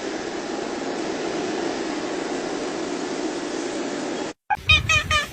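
A steady, even rushing noise for about four seconds that cuts off abruptly. After a brief gap comes a quick run of about five short honking animal calls near the end.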